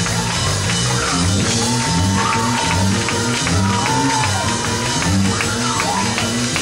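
Praise-break music played live: a fast, steady beat of percussion over pulsing bass notes, with a few long held melodic notes on top.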